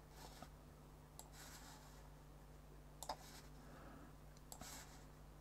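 Near silence with a few faint computer mouse clicks, a second or more apart, over a low steady hum.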